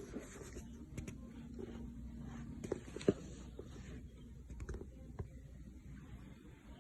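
Faint handling noises: scattered small taps and clicks of makeup items being picked up and applied, over low room tone.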